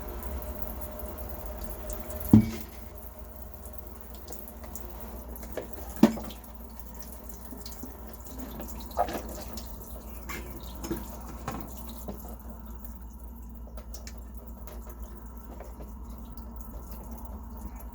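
Water trickling and dripping around coffee maker parts in a CLR-and-water descaling soak, with a few sharp knocks, the loudest about two and six seconds in. A steady low hum runs underneath.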